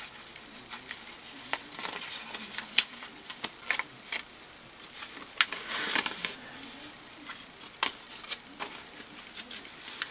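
Folded paper slip rustling and crinkling as it is unfolded by hand: scattered light crackles, with a longer rustle about six seconds in.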